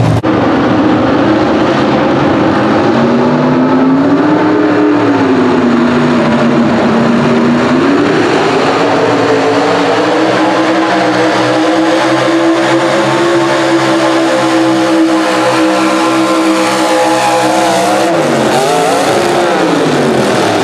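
Ford Ranger pro stock mini pulling truck's engine at full throttle, dragging a weight-transfer sled. Its pitch climbs, sags for a few seconds, then climbs again and holds high and steady, and falls away near the end as the truck comes to a stop.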